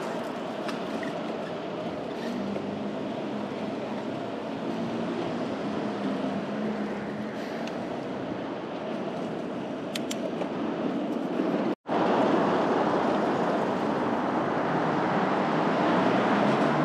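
City traffic and road noise heard while riding a bicycle, as a steady rushing noise with a low hum. Near the middle it breaks off sharply for a moment, then resumes louder.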